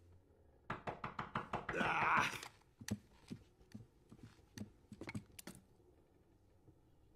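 Knocking on a wooden front door: a quick run of sharp raps under a second in, a brief rustle, then a few scattered single knocks or thumps.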